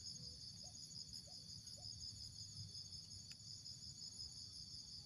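Faint, steady chorus of insects trilling high and continuously, like crickets.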